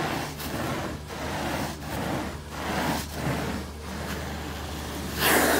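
Carpet-extraction wand pulled across carpet in quick strokes, its suction rushing and dropping a little under twice a second over the steady hum of the extraction machine. About five seconds in the suction jumps to a louder, continuous hiss.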